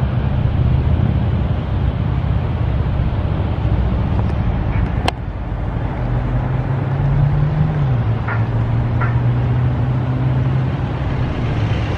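A car engine running with a steady low hum over a low rumble, its pitch rising slightly and then dropping a little past the middle. A single sharp click comes about five seconds in.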